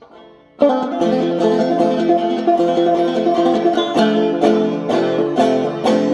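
Five-string banjo played clawhammer style with the instrument tilted out at a steep angle, starting about half a second in, with sharp percussive strokes about twice a second.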